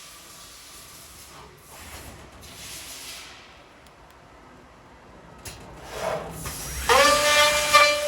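Machine air hissing in soft swells, then a couple of sharp clicks, and about seven seconds in a loud motor whine that rises briefly as it starts and then holds steady: the welding and cleaning machines working through a test cycle.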